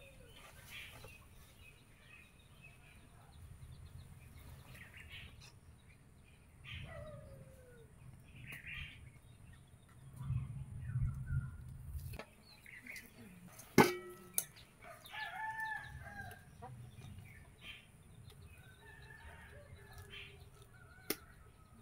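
Chickens clucking and a rooster crowing in the background. A single sharp knock a little past halfway, as the steel plate of batter meets the aluminium pot.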